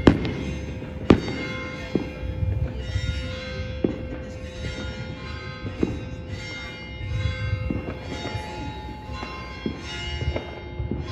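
Distant fireworks going off: sharp bangs every one to two seconds, the two near the start the loudest, with a low rumble between them. A layer of steady ringing tones sits under them.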